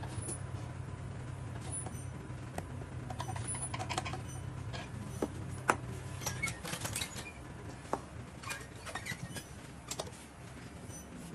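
Scattered small clicks and taps of hands handling and fitting parts at the rear of a 1/14 scale RC truck, the sharpest about halfway through, over a steady low hum that stops about halfway.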